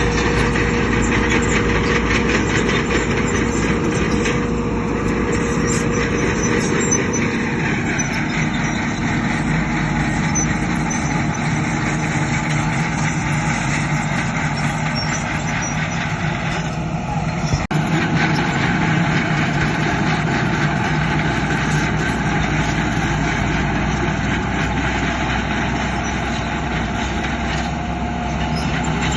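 Diesel engines of heavy construction machinery, a bulldozer and dump trucks, running steadily under work; the engine note shifts about a quarter of the way in, and there is a short sharp knock near the middle.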